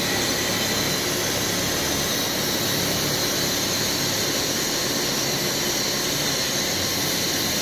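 Factory machinery running steadily: an even, loud mechanical noise with a high, steady whine over a low hum.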